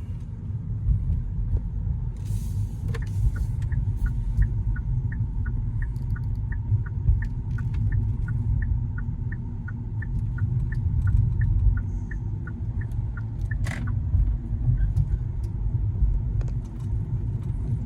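Car interior rumble from driving, engine and road noise. A regular ticking, about three per second, runs through the middle of it.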